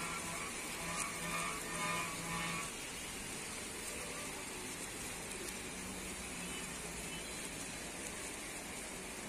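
Steady rain falling on the street and surroundings, with traffic hiss from tyres on the wet road. During the first three seconds a pitched sound comes in short pieces over it, then stops.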